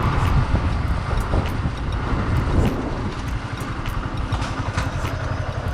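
Yamaha R15S single-cylinder motorcycle running steadily while being ridden, heard from the rider's microphone.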